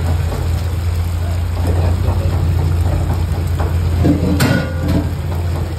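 Induction cooktop running with a steady low hum while a wooden spatula stirs sauce in a nonstick pan, with faint scraping ticks. A sharp knock with a brief ringing tone comes about four seconds in.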